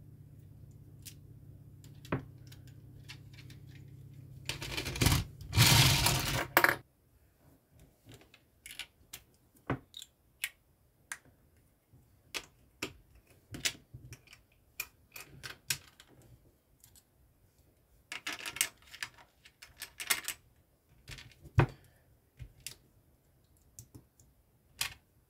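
LEGO bricks and plates clicking and clattering as hands pull them apart, sort them and press them together on a plastic baseplate. Sharp single clicks come throughout, with two longer rattling stretches: a loud one about five seconds in and another around eighteen seconds in.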